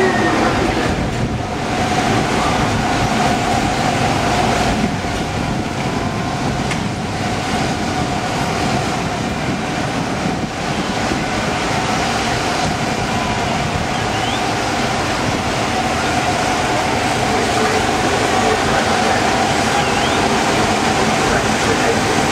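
A steady mechanical rumble with a constant whine running under it, the level holding even throughout.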